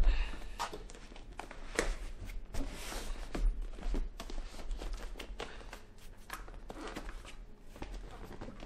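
Handling noises of a gaming-chair backrest being fitted onto the seat's metal side brackets: irregular knocks, clicks and rustles of the plastic and padded upholstery being pushed and shifted into line.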